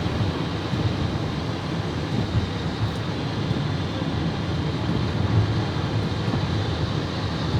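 Steady low rumble of outdoor city street ambience, with no distinct events standing out.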